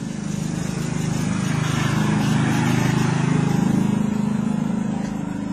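A motor engine running, its noise swelling up over a few seconds and fading away again, like a vehicle passing by.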